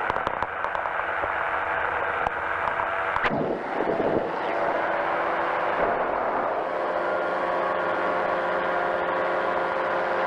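Powered parachute's engine and propeller running steadily in flight, with wind rumbling on the microphone. There is a brief sweeping surge a little over three seconds in.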